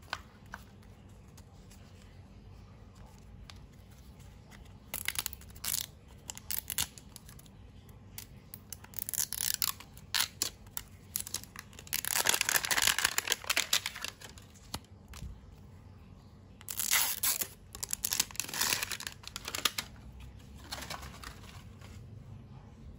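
Plastic packaging of a toy surprise ball being torn open and crinkled by hand, in short bursts with pauses between, the longest and loudest about midway.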